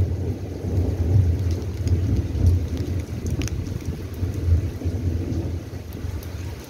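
Rain during a thunderstorm: a low, continuous rumble with scattered sharp drips and patters, easing slightly near the end.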